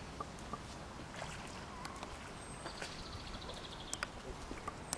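Brown bear bathing in a pond: gentle water sloshing and dripping, with scattered small sharp splashes as it moves.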